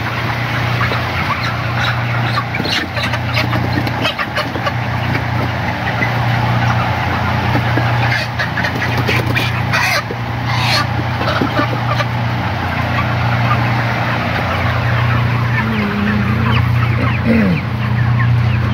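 A shed full of 35-day-old broiler chickens clucking and cheeping in a dense, steady chatter, over a low hum that fades in and out. A few sharp rustles and flaps come about halfway through as birds are handled and put in a box.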